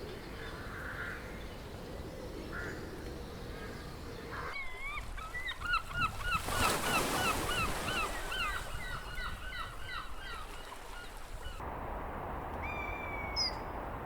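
A flock of geese honking: many overlapping calls in quick succession for several seconds, over a steady background hiss. Near the end the background changes and a single drawn-out call is heard.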